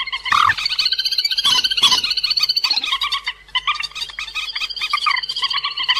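Calls of cuốc biển, a waterhen, from a bird-trapping lure recording. Several birds call over one another in fast chattering series of short clipped notes.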